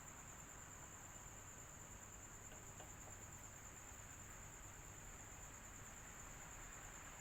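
Electric fan running steadily and faintly: an even airy hiss with a low hum and a constant high-pitched tone.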